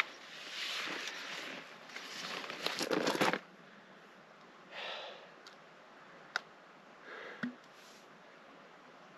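Fabric rustling and scuffing as a backpack is slipped off the shoulders and set down, for about three seconds. Then a few faint handling rustles, a sharp click and a soft thump.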